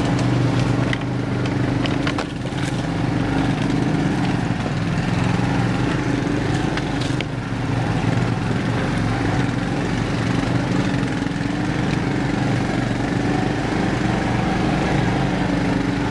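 Small garden tractor engine running steadily at a constant speed, with a few sharp clicks or knocks in the first half.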